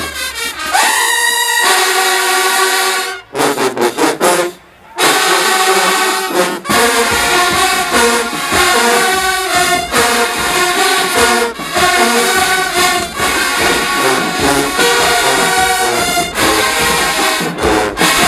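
Marching band brass playing loud held chords and short punched notes, with a brief break. About seven seconds in the full band comes in, low end included, and plays a steady rhythmic groove.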